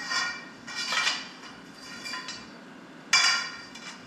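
Steel parts clanking as they are handled and fitted together. About four ringing metallic knocks, the loudest about three seconds in.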